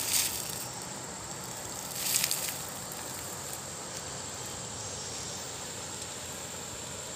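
Shallow river running over stones, a steady rushing hiss, with two brief louder bursts of noise: one just after the start and one about two seconds in.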